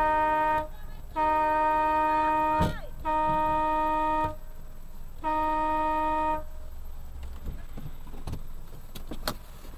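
Car horn honked in long steady blasts: one ending just after the start, then three more, each over a second long with short gaps between. After that, only the steady road and engine noise of the car driving.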